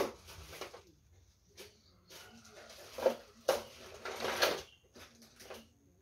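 Tools clattering in a plastic toolbox as a hand rummages through it: a sharp knock at the start, then scattered clicks and a louder bout of rattling about three to four and a half seconds in.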